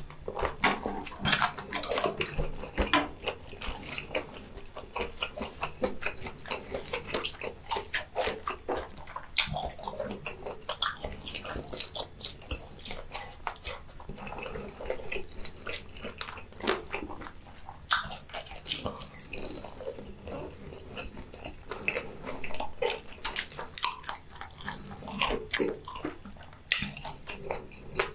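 A person chewing food with wet, smacking mouth sounds: irregular squelching clicks that continue without a break.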